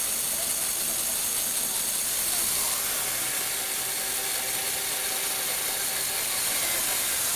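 Small electric motor driving plastic Lego Technic gears, a steady mechanical whirr under a constant hiss, with a faint motor tone coming in about a third of the way through.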